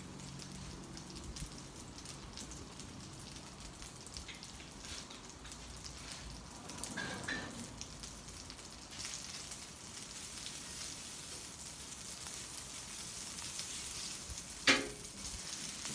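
Boiled spaghetti noodles sizzling on a hot Blackstone flat-top griddle, a steady crackling hiss that grows a little fuller about nine seconds in. Near the end a metal spatula strikes and scrapes the steel griddle top once, sharply, as it digs under the noodles.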